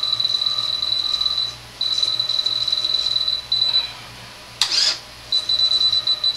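Radio-control transmitter (Futaba 7C 2.4 GHz) beeping: a high, clean beep repeated rapidly in long runs of one to two seconds with short breaks, as the retract channel's endpoint is adjusted in its menu. A brief sharp noise comes about three-quarters of the way through.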